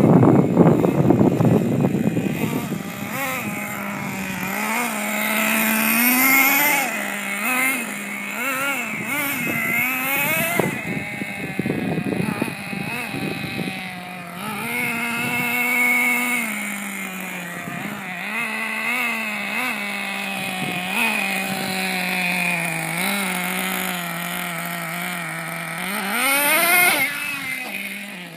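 Small nitro engine of a Team Associated MGT 3.0 radio-controlled monster truck, revving up and dropping back again and again as the truck is driven, with a sharp rev-up near the end. A burst of rushing noise in the first couple of seconds.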